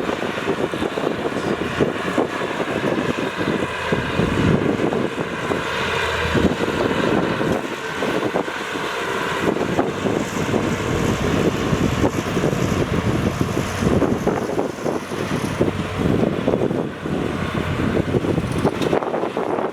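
Heavy diesel earth-moving machinery running steadily under load.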